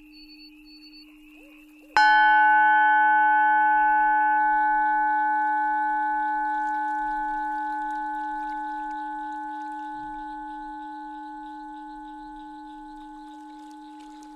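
Tibetan singing bowl struck once about two seconds in, then ringing with several steady overtones around a main tone near 852 Hz and fading slowly. A low steady drone sounds underneath throughout.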